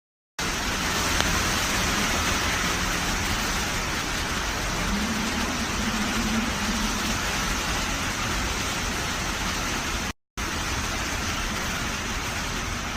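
Steady hiss of hurricane rain and wind, starting abruptly after a moment of silence and cutting out briefly about ten seconds in.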